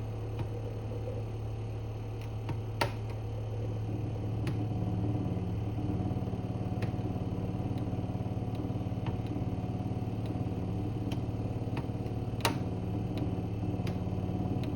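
Compressor of a new Electrolux refrigerator running with a loud, steady low hum; a second, higher tone joins about four seconds in and the hum grows a little louder. A few light ticks and two sharper clicks sound over it. The owner takes the noise for a fault; the maker says it is normal compressor sound.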